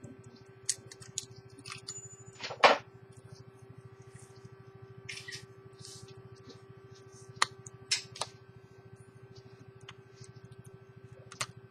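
Irregular small clicks and a few sharper knocks of hands handling small objects on a bench, the loudest knock about two and a half seconds in, over a steady low hum.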